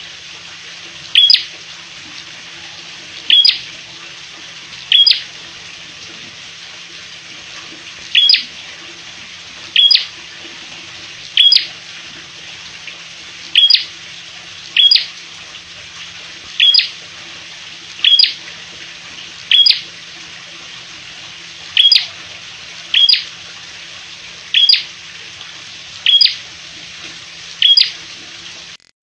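A caged prenjak, a small warbler of the prinia family, giving short, sharp, high chip calls, about sixteen of them at uneven gaps of one to three seconds, over a steady background hiss and a faint low hum.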